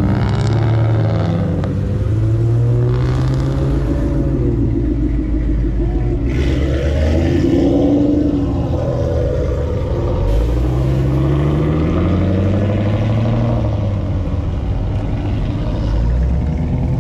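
Several car engines running and revving as cars drive past one after another, their pitch rising and falling as each one goes by.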